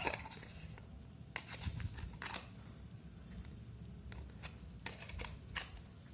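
Scattered small clicks and brief scrapes of a battery being fitted by hand into the plastic case of a JioFi M2 pocket Wi-Fi router.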